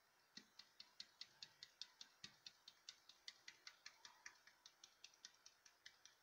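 A plastic paint cup being handled on a canvas, with light, even clicking at about five clicks a second, starting with a soft thump about half a second in.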